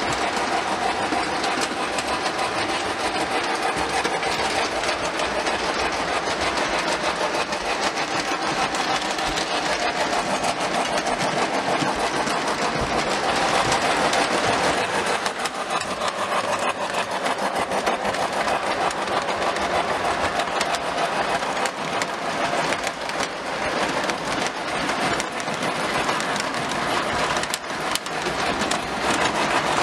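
Lionel O27 model trains running steadily on three-rail track: the continuous mechanical whir of the electric motors with the rattle of wheels on the rails.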